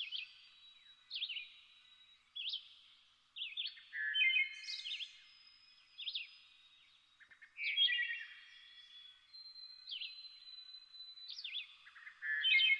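Several birds calling at once: short, repeated chirps and quick downward-sweeping notes overlapping one another, with a thin held whistle partway through.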